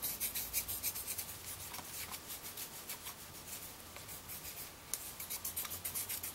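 A thin wooden stick scraping along a galvanized steel pipe in quick repeated strokes, several a second, lifting off zinc coating that has been loosened by a day's soak in vinegar. The strokes thin out in the middle, and there is a single sharp tick about five seconds in.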